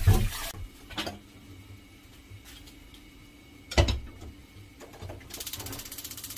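Kitchen tap running briefly, then shut off with a thud. A click and a heavier knock follow, like pots or utensils being handled, and near the end comes about a second of rapid, even ticking.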